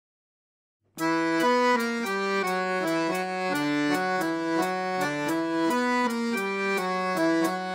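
Solo accordion playing an intro melody of sustained reedy notes, about three a second, over a low held bass tone, starting about a second in after silence.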